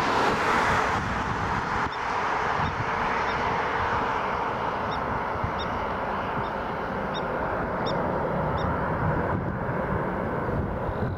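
Distant jet roar of an Airbus A319-111's CFM56 engines as the airliner rolls out after touchdown, loudest at the start and easing off as it slows.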